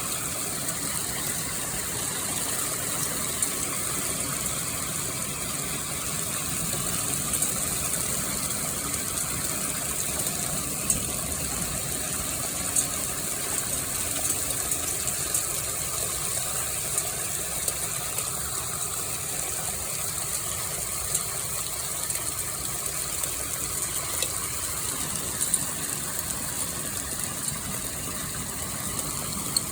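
Hail falling steadily: a dense, even hiss of stones coming down, with sharper clicks of single hailstones striking every second or so.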